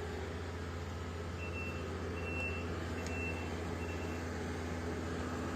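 Backup alarm on heavy jobsite equipment beeping four times, evenly spaced, over the steady low running of its diesel engine, a sign the machine is reversing.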